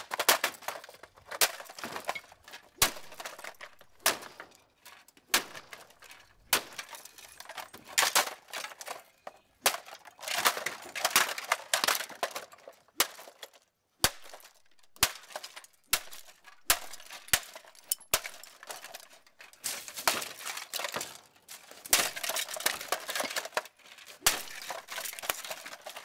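Plastic box fan being smashed with a metal bar: repeated hard strikes, about one a second, each followed by the crack of plastic housing and the clatter of broken pieces and the metal grille on concrete.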